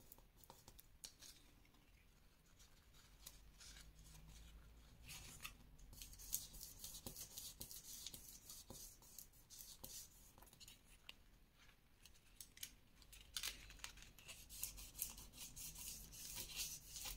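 Faint crackling and rustling of paper under the fingers as a glued paper strip and its small cut tabs are pressed around the edge of a paper circle. The crackles come in quick clusters, thickest about five seconds in and again near the end.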